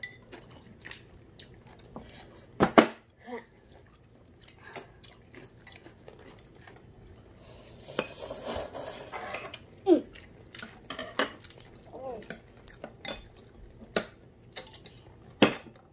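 Chopsticks and spoons clicking and clinking against ceramic bowls and plates while udon is eaten, in scattered single knocks. About eight seconds in, a slurp of udon noodles lasting a second or so.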